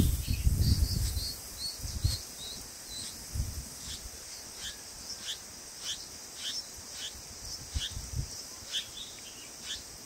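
Bulbul nestlings begging: short, high, falling cheeps repeated about twice a second, over a steady high insect hiss. A few soft low thumps come in between.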